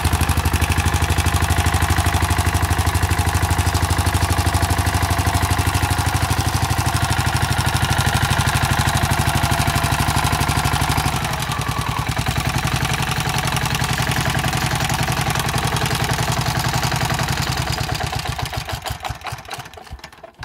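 Walk-behind tiller's Ruggerini engine running steadily, then dropping to a lighter, lower running about eleven seconds in. Near the end it slows, its firing strokes spacing out, and stops as it is shut down.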